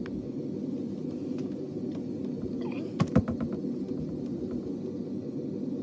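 Steady low hum, with a short cluster of clicks and knocks about three seconds in.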